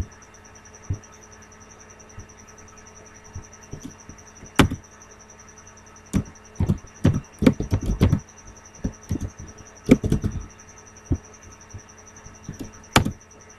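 Computer keyboard keystrokes and mouse clicks: scattered single clicks with quick runs of taps in the middle, over a faint steady high-pitched whine.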